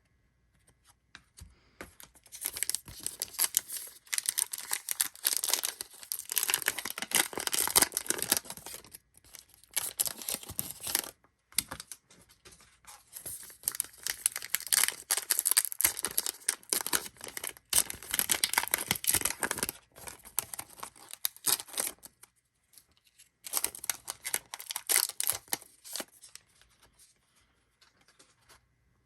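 Baseball card pack wrappers being torn open and crinkled, in several bouts of crackling with short pauses between them.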